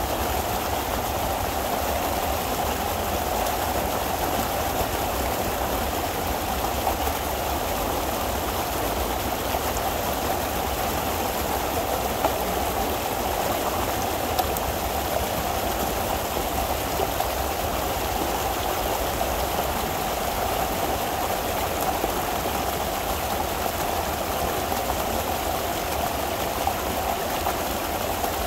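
Pond water rushing steadily through a breach dug in a beaver dam as the pond drains.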